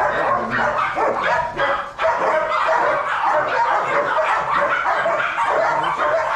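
Caged Shih Tzus barking and yipping continuously, several dogs calling over one another.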